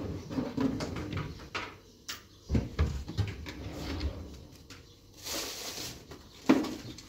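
Irregular knocks and clatter of objects being handled, with a heavier thump about two and a half seconds in, a short hiss around five seconds in, and another sharp knock near the end.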